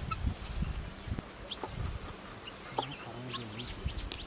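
Chickens clucking in the background, with a short call about three seconds in and a few faint clicks and taps.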